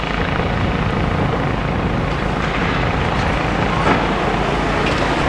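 Steady diesel engine rumble from a demolition excavator working with a bucket, mixed with the wash of road traffic.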